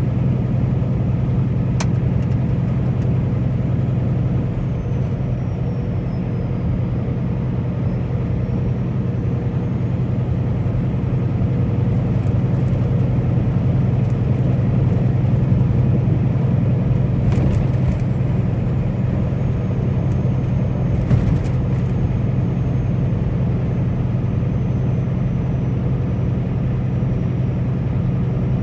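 Steady low engine drone and road noise from a truck rolling at highway speed, with a few faint clicks about two seconds in and again past the middle.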